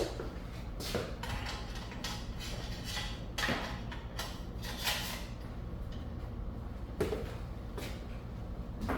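Handling noise of a rifle and a gun vise being worked by hand: scattered knocks, clicks and scrapes, several a few seconds apart, over a steady low hum.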